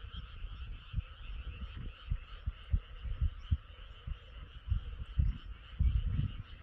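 A dense chorus of frogs calling all together, a steady, high, trilling wall of sound. Irregular short low thumps run under it, strongest near the end.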